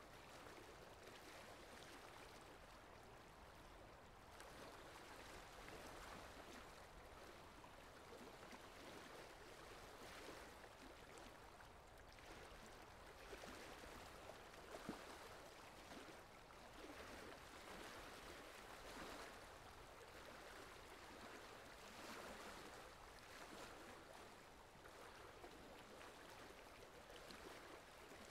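Faint wet squelching and sloshing of thick mud and muddy water being dug through by hand, with irregular small slaps and splashes.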